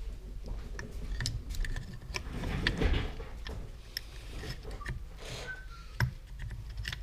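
Small metal clicks and clinks of gears, washers and a spring being handled and slid onto a gearbox shaft in the open crankcase of a Suzuki RM125 engine, with one sharper click about six seconds in.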